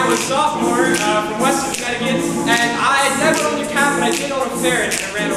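Male a cappella group singing a repeating backing vamp in close harmony, with held low bass notes under moving upper voices and sharp clicks keeping time.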